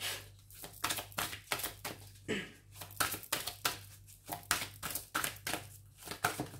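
A deck of oracle cards being shuffled by hand: a quick, uneven run of papery card snaps and slaps, several a second, over a low steady hum.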